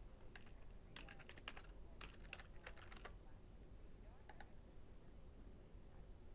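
Faint typing on a computer keyboard: a quick run of keystrokes over the first three seconds, then two more clicks a little after four seconds.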